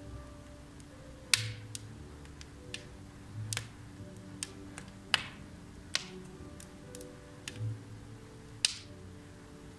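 Logs burning in a wood fireplace, crackling with a sharp pop every second or so; the loudest pops come about a second in, halfway through and near the end. Soft café music plays underneath.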